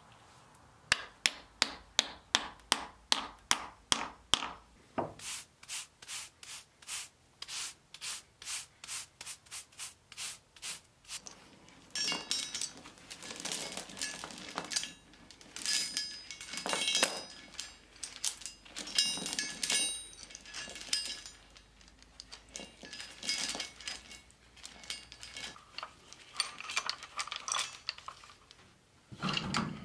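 A hammer striking a steel piece set in a hole in a stone block, in sharp ringing blows at about three a second, slowing to about two a second. About twelve seconds in, the blows stop and an iron chain rattles and scrapes as it is wrapped around a heavy steel anvil and hooked to a chain hoist.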